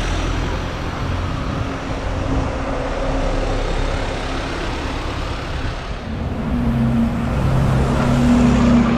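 Double-decker buses driving past close by, with engine drone and tyre noise over street traffic. About six seconds in a steadier, pitched engine hum begins and swells as another bus pulls past near the end.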